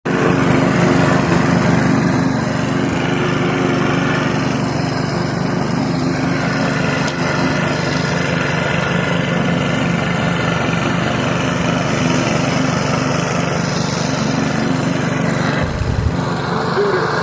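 PowerSmart gas push lawn mower engine running steadily while mowing.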